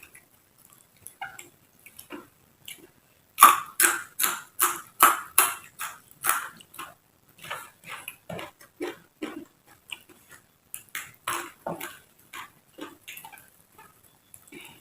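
Close-up crunchy chewing of raw vegetables, a quick series of crisp crunches at about three a second, loudest a few seconds in, then slower and softer chewing.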